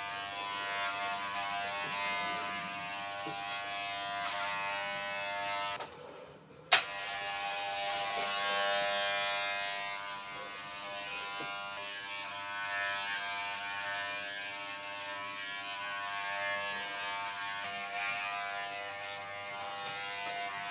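Corded WAHL Pet-Pro electric pet clipper running with a steady buzz as it shaves a small dog's long coat. About six seconds in, the buzz cuts out for under a second, then starts again with a sharp click.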